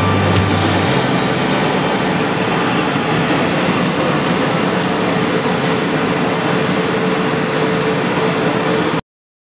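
Dense, steady background music. A low bass line drops out about a second in, and the music cuts off abruptly about nine seconds in.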